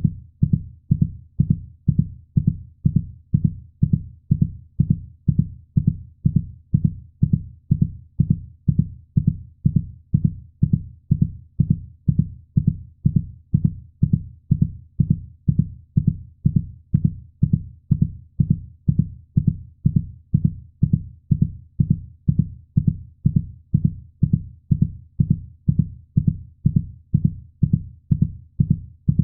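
Heartbeat sound: a steady, unbroken run of dull, low thumping beats at an even pace.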